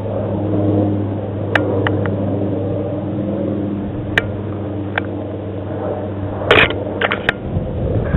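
Rustling and crackling of dry grass and brush as someone pushes through it, with scattered sharp clicks and snaps over a steady low hum. The loudest crunch and clicks come in a cluster about two-thirds of the way in.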